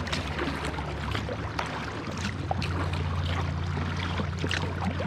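Kayak paddling: water dripping and splashing off the paddle in many small, irregular ticks over a low, steady rumble.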